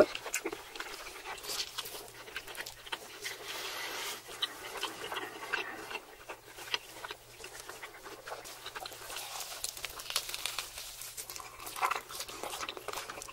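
Close-miked eating sounds: wet chewing and lip smacking of steak and melted stretchy cheese, a run of quick irregular clicks and breaths.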